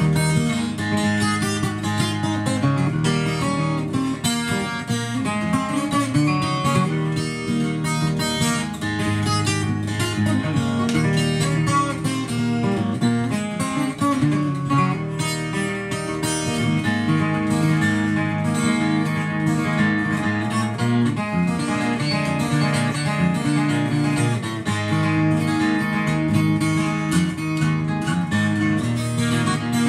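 Solo 12-string acoustic guitar, a Lakewood J-32-12 Custom tuned a half step down, played as a fingerpicked instrumental, with a steady bass line under a melody.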